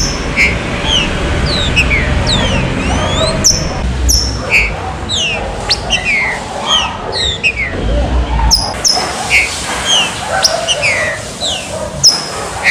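Green-winged saltators (trinca-ferro) calling and singing: many quick whistled notes, most sliding downward, several birds overlapping, over a low rumble.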